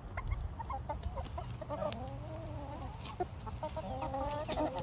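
A flock of chickens clucking: short clucks, then two longer wavering calls, one about two seconds in and one near the end, with a few sharp clicks among them.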